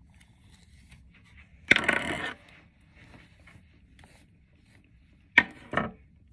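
Handling noises while working on a wig: a sharp knock with a brief scraping rustle, then two quick clacks near the end, from small hard objects being handled and set down.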